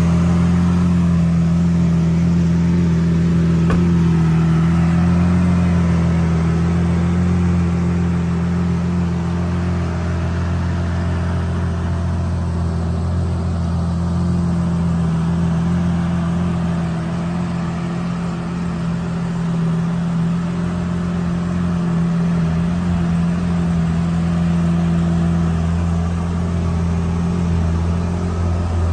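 Lamborghini Aventador's 6.5-litre V12 idling steadily through its aftermarket exhaust.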